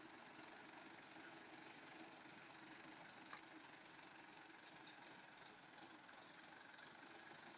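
Faint, steady running of an engine, heard at a distance: the machinery working the root harvester.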